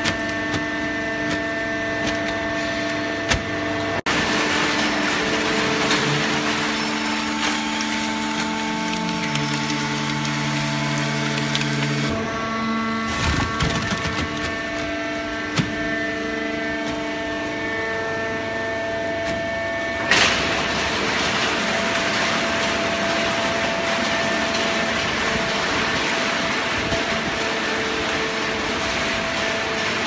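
Horizontal hydraulic paper baler running: a steady machine hum from its motor and pump, with several held tones over a noisy haze. The sound shifts abruptly a few times.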